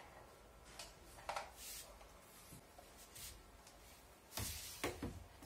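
Quiet room with a few short rustles and soft handling noises, the loudest a little past four seconds in.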